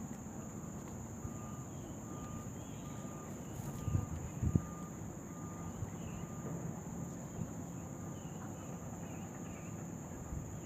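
Riverside ambience: a steady high insect drone over a low engine rumble, with a short faint beep repeating regularly somewhat under twice a second. Two or three thumps come about four seconds in.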